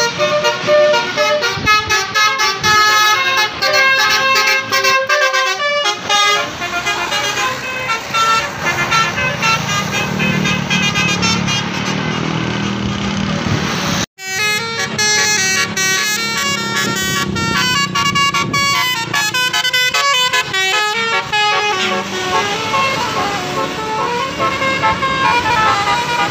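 Bus telolet horns, multi-tone musical air horns, playing fast repeating runs of short notes that step up and down, over a bus engine running underneath. The sound cuts out for an instant about halfway through, then the horn runs resume.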